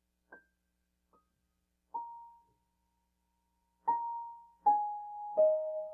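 Slow, gentle solo piano. A few soft notes come far apart, then from about four seconds in louder notes follow one another, each lower than the last, left ringing so they overlap.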